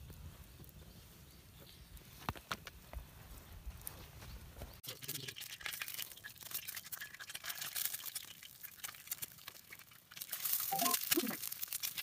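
Wood campfire crackling under a low rumble, then, about five seconds in, an egg frying in oil in a pan over the fire, sizzling with dense popping and spitting that grows loudest near the end.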